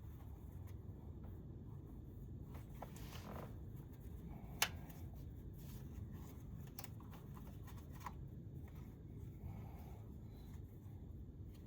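Faint handling noises of hands and tools on the engine, small rustles and clicks with one sharp click about four and a half seconds in, over a low steady rumble.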